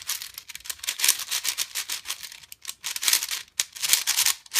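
Cyclone Boys 5x5 speed cube being turned fast, its plastic layers clicking and clacking in a rapid, uneven rattle of turns. It is a crunchy-turning cube.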